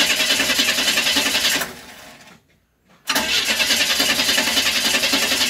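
An old ice cream truck's engine cranking on the starter without firing, in two attempts with a short pause between. The owner follows it by tapping the starter.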